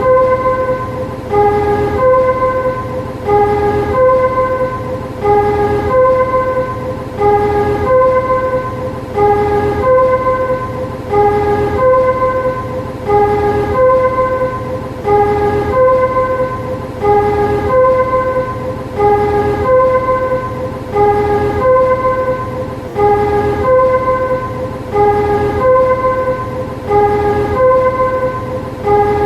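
Warning chime of a railway shunting vehicle: a short melody of several electronic tones at different pitches, repeating about every two seconds, over a steady low hum.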